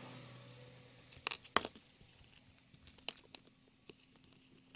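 Small plastic clicks and taps as the brake-light switch is worked out of its housing on a moped's hand brake lever, with the sharpest clicks about a second and a half in.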